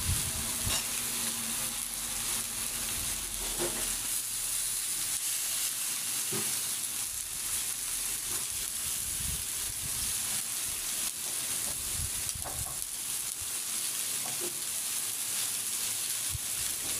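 Chicken pieces and sausage slices sizzling on a hot iron sac griddle: a steady hiss of fat frying, with a few faint clicks.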